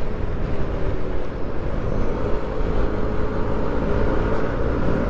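Motorcycle engine running steadily at road speed, heard over a heavy, even wind rush on the rider's camera microphone.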